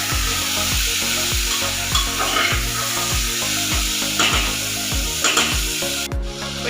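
Chicken and onions sizzling as they brown in the open pressure cooker, stirred now and then with a few short scrapes. Background music with a steady beat of about two thumps a second runs underneath.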